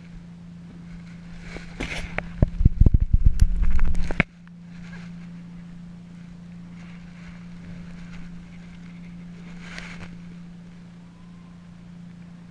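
Choppy water slapping against a kayak and washing over a low-mounted waterproof camera housing. About two seconds in comes a loud stretch of splashing and knocking that cuts off suddenly, then fainter washes of water, over a steady low hum.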